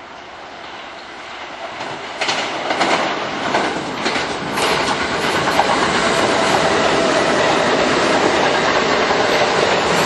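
Kintetsu red-and-white commuter train running through a station at speed without stopping: its noise swells as it approaches, with the wheels clacking over rail joints several times, then holds steady and loud as the cars pass close by, with a faint steady whine.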